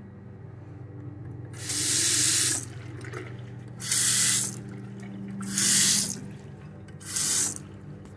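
Water from a bathroom sink faucet splashing into a porcelain basin in four short spells, each under a second, as it is turned on and off, over a steady low hum.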